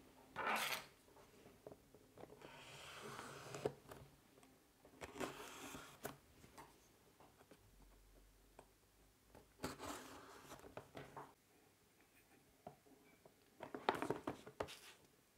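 Hands working a cardboard drone box open: a small knife slitting the seal along the box's edge, with cardboard scraping and sliding in several short bouts.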